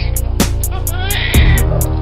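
A homemade beat with steady deep bass, kick drums and regular hi-hat ticks. A newborn baby's cry rises over it for about half a second, around a second in.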